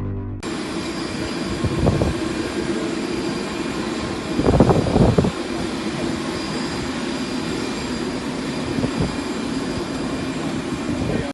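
Jet airliner engines running on the ground: a steady rushing noise with a faint high whine, swelling briefly about halfway through.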